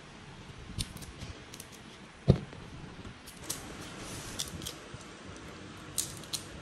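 Hands handling leafy greens and a plastic colander: scattered light clicks and rustles, with one sharp knock about two seconds in.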